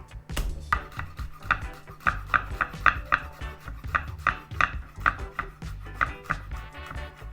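Kitchen knife chopping seasoning, a quick uneven run of sharp knocks about three a second.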